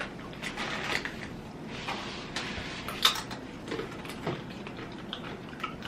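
Thin, crisp taro chips being bitten and chewed: irregular sharp crunches and crackles, with the loudest crunch about three seconds in.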